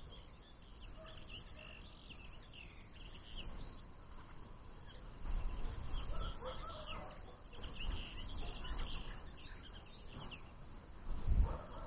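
Small songbirds chirping and twittering in many short, quick notes, with low rumbles about five seconds in and again near the end.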